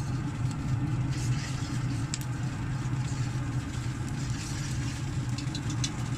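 Pellet grill's fan running with a steady low hum, with a few light clicks and clinks from food being handled in cast-iron pans on the grate.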